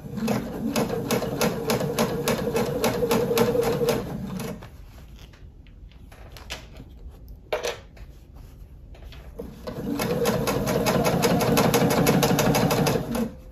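Electric sewing machine stitching binding onto a thick, multi-layer quilted oven mitt at a steady pace of several stitches a second. It runs in two spells separated by a pause of about five seconds, with a single click in the pause.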